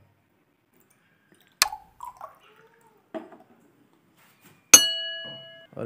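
Small glass bottle with water in it being handled: a sharp click and a few small drip-like knocks, then near the end a loud clink that rings on as a clear glass tone, dying away over about a second.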